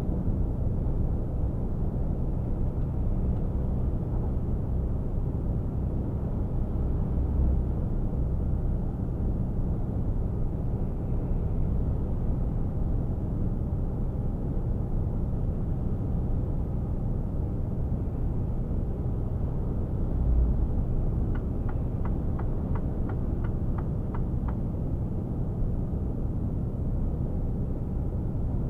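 Mercedes-Benz Actros 1848 truck heard from inside the cab while cruising at motorway speed: a steady low engine drone mixed with road and tyre rumble, with an occasional low thump. About two-thirds of the way in comes a run of about a dozen light ticks, about four a second.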